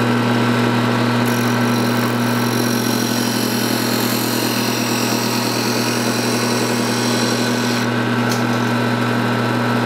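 Craftsman bench-top 4-by-36-inch belt and 6-inch disc sander running with a steady motor hum, its motor fitted with a new capacitor. Wood is pressed against the sanding disc, giving a dense rasping hiss over the hum.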